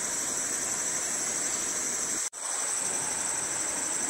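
Steady high-pitched drone of forest insects over an even hiss, broken by a brief gap where all sound drops out about two seconds in.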